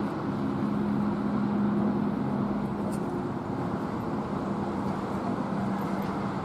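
A vehicle engine running steadily, a continuous low hum with a held low tone.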